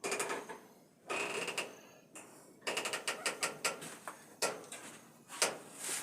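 Handling noises: bursts of scraping and rustling, with a quick run of sharp clicks and clatters, about five a second, in the middle.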